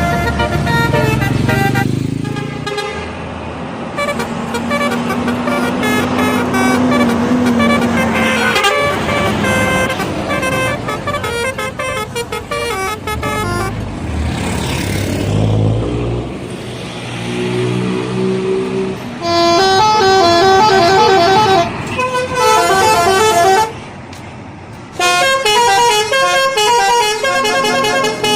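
Bus telolet horns, multi-trumpet air horns, playing quick melodic note sequences. The loudest runs of notes come about two-thirds of the way in and again near the end. A low engine rumble of a passing bus comes midway.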